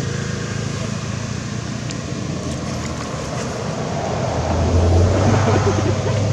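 A motor engine running with a steady low hum, growing louder about four and a half seconds in.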